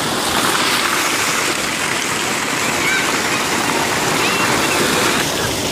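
A heavy jet of water pouring into a water tank, a loud steady rush, with children splashing and wading in the churned water right beside it.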